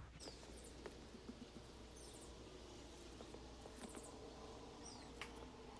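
Near silence: a faint outdoor background with a few faint, short high chirps and light clicks scattered through it.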